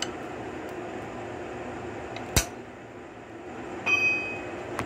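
Small steel wrench clinking against the valve adjuster and cylinder head of a Suzuki DR-Z125 engine while the valve clearance is set. There is one sharp click about halfway through, then a second clink near the end that rings briefly like struck metal, over steady background noise.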